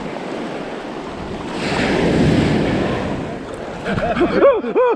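Small surf wave washing up over the sand, swelling to its loudest about two seconds in and then easing off.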